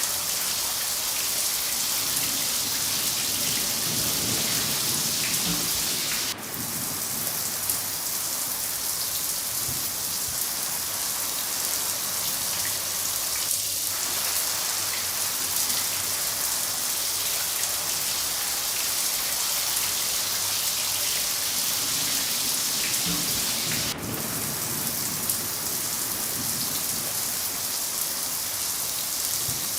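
Steady heavy rain falling on a surface, a dense even hiss, with two brief dips in level, about six seconds in and again about six seconds before the end.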